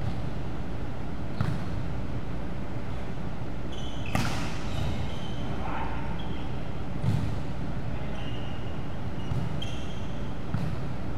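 Volleyball being struck over and over in a rally, about five sharp slaps of hands and arms on the ball, with short squeaks of sneakers on the court floor in between. A steady background noise runs underneath.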